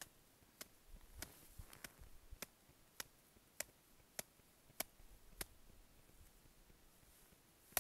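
Avalanche compression test: about ten light, evenly spaced taps on a snow shovel blade laid on top of an isolated snow column, a little over half a second apart, then a louder sharp knock at the very end.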